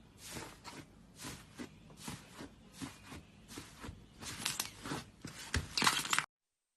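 Slime being squeezed and pressed by hand, a run of short sticky pops and crackles that come faster and louder toward the end, then cut off abruptly about six seconds in.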